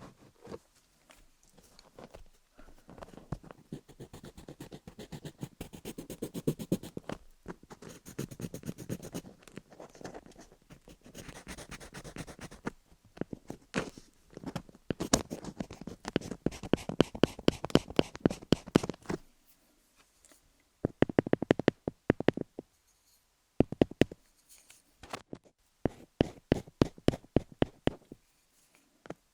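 Colored pencil scribbling on wooden picks right at the dummy-head microphone: fast scratchy strokes in several bursts with short pauses, turning to sharper quick ticks in the last third.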